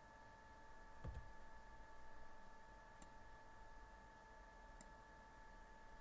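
Near silence: room tone with a faint steady electrical whine and two faint clicks, a few seconds in and near the end.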